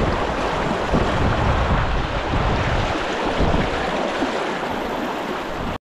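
Fast river water rushing and churning through rapids, with wind buffeting the microphone in a low rumble. It cuts off abruptly near the end.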